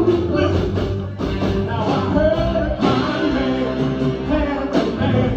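Motown-style song with a lead voice singing over a band with guitar.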